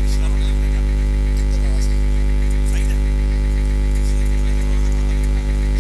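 Loud, steady electrical mains hum on the commentary sound system: an unchanging low drone with a stack of overtones.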